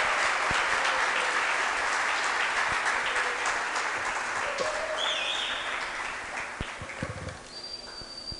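Audience applauding. The clapping is steady for about five seconds, then dies away over the last few seconds.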